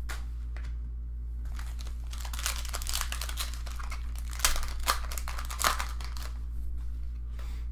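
Foil trading-card pack wrapper being torn open and crinkled by hand. The crackling starts about a second and a half in, comes in sharp bursts near the middle, and eases off about a second before the end.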